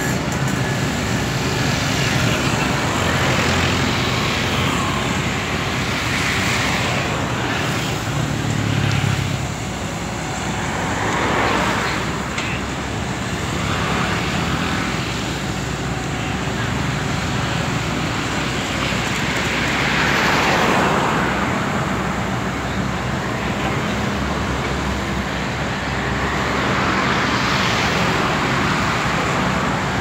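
Road traffic passing close by, several vehicles sweeping past one after another, over the steady running of a CAT 320D excavator's diesel engine as it digs and loads a dump truck.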